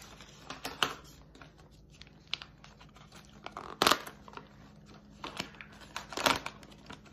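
Paper rustling and tearing as a folded, stapled sheet is pulled open by hand, with two louder rips about four and six seconds in.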